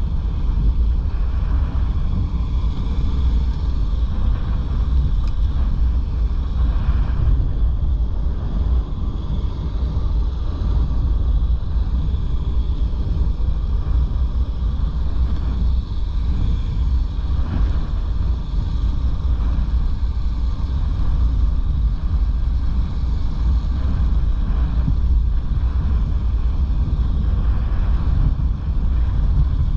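Strong wind buffeting the microphone: a loud, steady low rumble with a hiss above it.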